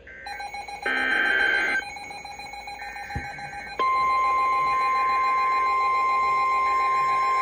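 NOAA Weather Radio Specific Area Message Encoding (SAME) data burst, a short harsh warbling screech, followed about four seconds in by the 1050 Hz warning alarm tone, which starts abruptly and holds one loud steady pitch. Together they mark the header and alert of the next warning on the broadcast.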